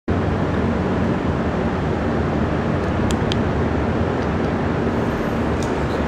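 A 2007 Ford Mustang GT's 4.6-litre V8 idling steadily, its exhaust running through long-tube headers, an off-road X-pipe, mid-mounted Pypes M80 mufflers and MBRP muffler deletes.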